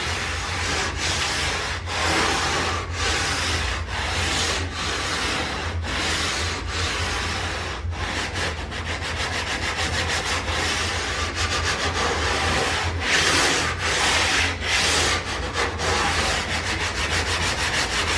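Handmade sanding block, sandpaper wrapped round a wooden block, rubbed back and forth along the edge of an ebony fingerboard to get it flat and straight. Long scraping strokes come about one a second at first, then quicker, shorter strokes from about eight seconds in.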